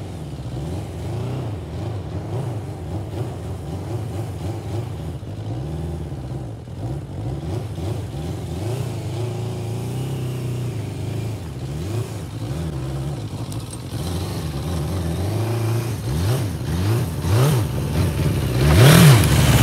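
Sport bike engine revving up and down over and over, the pitch climbing and dropping every second or two. It gets louder toward the end, with quicker, sharper revs just before it cuts off.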